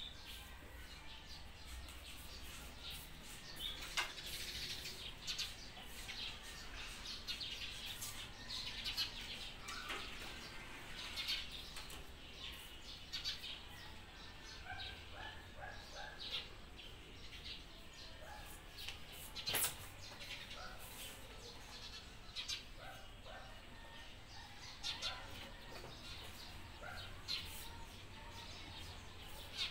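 Small birds chirping over and over, short high calls with runs of quick repeated notes, and two sharp knocks, one about four seconds in and one near the middle.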